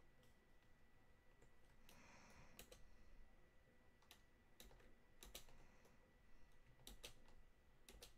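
Faint, scattered clicks of computer keyboard keys and a mouse, several coming in quick pairs.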